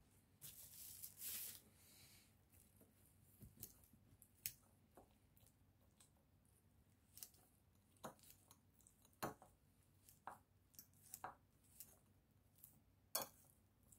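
Metal fork mashing boiled potato cubes in a ceramic bowl: irregular sharp clicks of the tines striking the bowl, faint between them. A brief hiss near the start.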